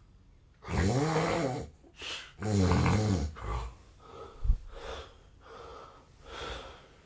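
A man snoring loudly in his sleep: two long, rough, pitched snores a little under two seconds apart, followed by quieter breathing with one short sharp click partway through.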